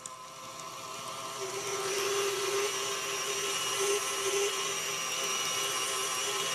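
KitchenAid stand mixer running with a meat-grinder attachment, grinding cubed buffalo meat and beef chuck: a steady electric motor whir that grows louder over the first couple of seconds, then holds even.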